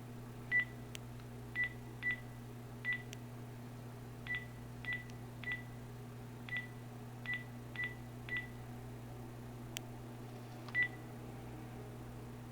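Phone keypad beeping: about a dozen short beeps, all at one pitch and spaced unevenly as keys are pressed. A few faint clicks and a steady low hum run underneath.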